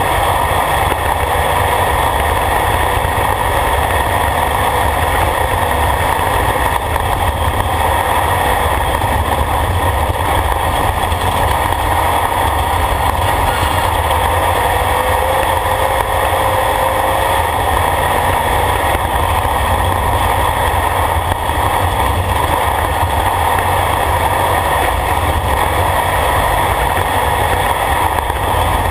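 Off-road race vehicle's engine running steadily at speed, with tyre and gravel noise, heard from inside the caged cockpit.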